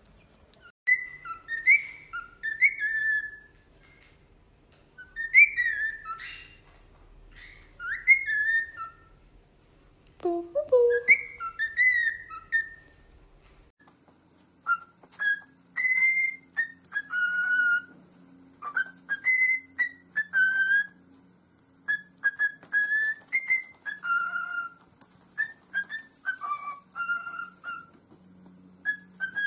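A parrot whistling phrases of short, gliding, high notes, with one lower sliding note near the middle.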